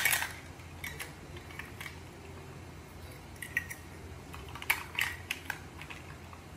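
Plastic toy ice cream pieces clicking and clattering as they are handled and fitted together: a sharp click right at the start, then a few scattered lighter clicks. A low steady hum lies underneath.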